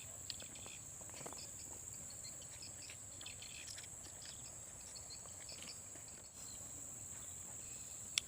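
Forest insects making a steady high-pitched drone, with scattered faint ticks and rustles; a single sharp click near the end is the loudest thing.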